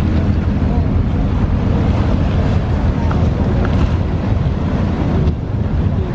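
Wind buffeting the microphone over a boat engine's steady low drone and the wash of choppy water, as heard out on deck on the water.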